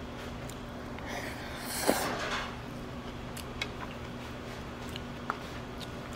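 Restaurant room tone: a steady low hum with a few faint light clicks, and a short louder noise with a sharp knock about two seconds in.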